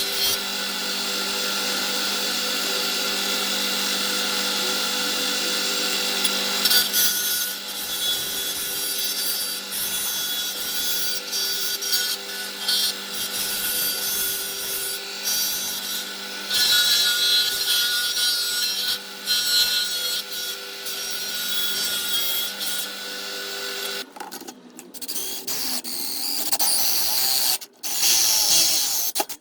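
Electric power tool, likely a grinder, cutting and shaping a small steel bracket: a steady motor whine with rasping as the metal is worked. It stops about 24 seconds in, followed by a few short scrapes and knocks.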